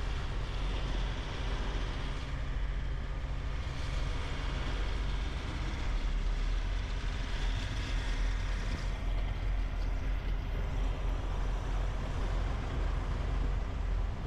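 Semi truck's diesel engine running with a steady low drone.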